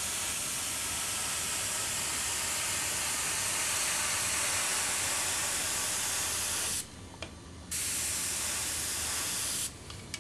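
Badger airbrush spraying paint in a steady hiss. The spray cuts off about seven seconds in, starts again after a short pause, and stops near the end.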